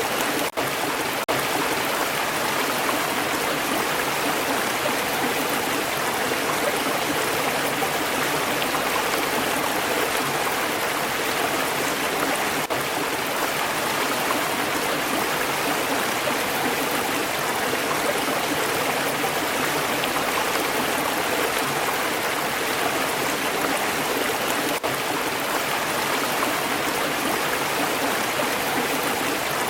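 Water of a stream flowing, a steady, even rush and babble of running water.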